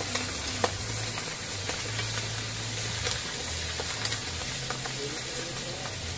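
Pork pieces frying in hot oil in a wok over a wood fire, a steady sizzle, with now and then a click of the ladle stirring against the wok.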